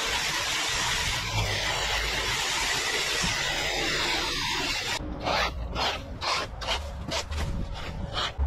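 Rake scraping cut plant debris and leaf litter across a concrete path. It is a continuous scraping at first, then about five seconds in it becomes separate strokes, about three a second.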